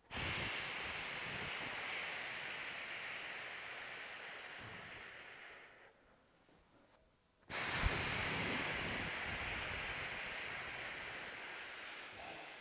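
A person's long, forced exhalations, two of them, each about six seconds long, starting abruptly and slowly fading, breathed out through each repetition of a standing hip exercise.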